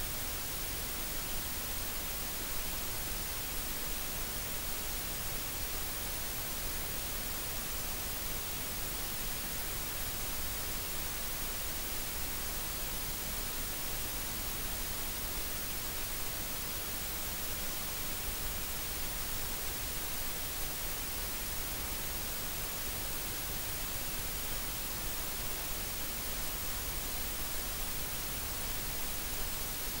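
Steady white noise: an even, unchanging hiss that is brightest in the high end.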